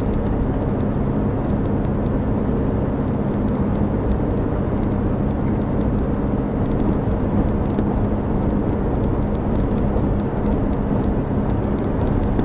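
Steady road and engine noise of a car cruising at highway speed, heard from inside the cabin, with a constant low hum.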